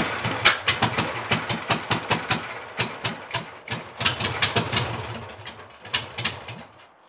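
Bench-mounted air-cooled Volkswagen flat-four engine running rough, with uneven popping firing strokes, getting steadily quieter and stopping near the end. The owner thinks the carburetor may need replacing.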